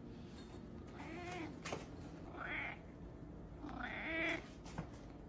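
Domestic cat meowing quietly three times, short calls about a second and a half apart, the last the loudest, with a couple of faint clicks between them.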